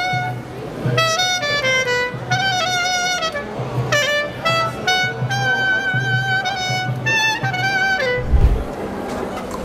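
Clarinet playing a quick melody with slides between notes. It breaks off about eight seconds in, and a short low thump follows.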